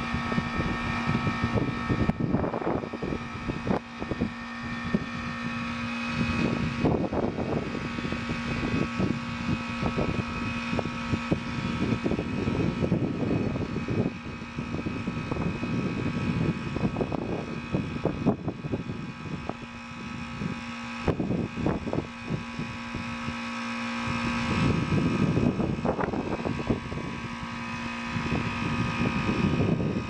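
Bryant heat pump outdoor unit running in defrost, its Bristol reciprocating compressor giving a loud steady hum with higher steady whining tones. Gusts of wind buffet the microphone throughout.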